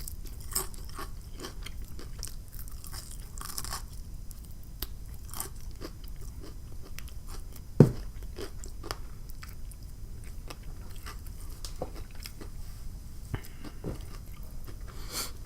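Close-up chewing of crispy fried food, a steady run of small crunches and crackles, with one sharper, louder crunch about halfway through.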